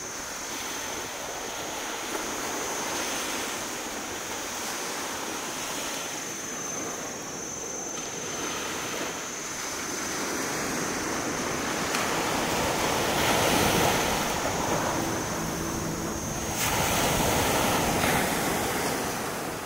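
Small waves breaking and washing up a sandy beach, a steady rush that swells and ebbs, louder about two-thirds of the way through and again near the end.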